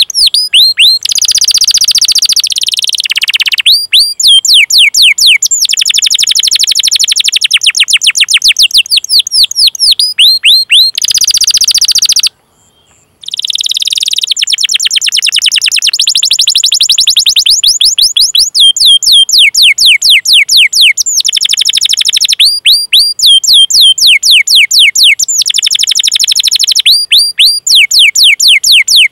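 Domestic canary singing a long, loud song of rapid repeated downward-sweeping chirps ("cuit cuit" calls) and fast rolling trills, with one short break about twelve seconds in.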